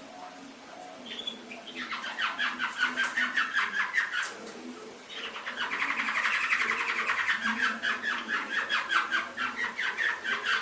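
Domestic canary singing long trilled phrases of rapidly repeated notes, about six a second. One phrase begins about two seconds in, then there is a short break, and a longer, louder phrase runs on.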